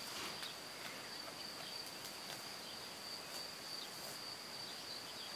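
Steady high-pitched insect trill, cricket-like, running without a break over faint meadow ambience, with a few faint short ticks.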